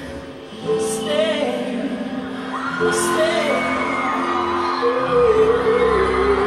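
Live pop-concert music played from a television and re-recorded: held chords with a wordless sung line drifting over them, and a deep bass coming in about five seconds in, with some crowd whoops.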